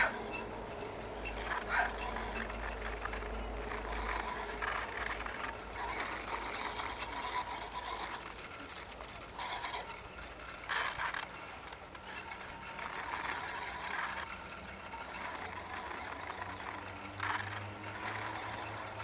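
Rail bike, a bicycle with an outrigger arm, rolling along steel rails: a steady rattle of wheels and frame, with a few sharper knocks.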